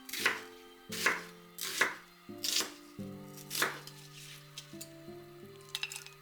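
Knife chopping on a cutting board, about five separate strokes in the first four seconds, then a few light clicks near the end, over soft background music.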